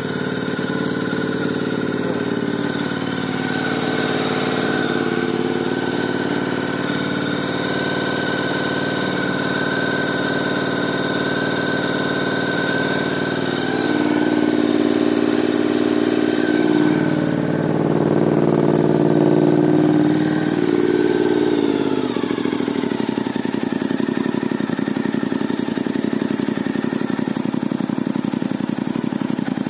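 Honda VTR1000 SP-2's 90° V-twin engine idling through an aftermarket IXIL silencer. Its revs rise a little and it gets somewhat louder around the middle, then drop back about two-thirds of the way through to a lower, steady idle.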